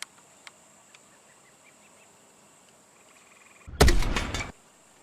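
A few faint plastic clicks, then a single shot from a spring-powered Nerf Doomlands Negotiator blaster about four seconds in: a sharp, noisy burst lasting under a second, which is the loudest sound here.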